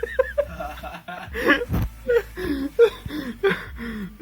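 People laughing and snickering in a string of short bursts.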